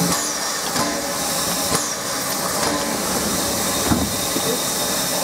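Bäderbahn Molli narrow-gauge steam locomotive standing and hissing steam, with a few irregular clicks and knocks.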